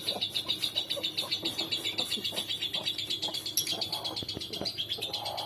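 Steady, rapid high-pitched chirping from a small animal, about ten evenly spaced pulses a second, with faint scattered clicks underneath.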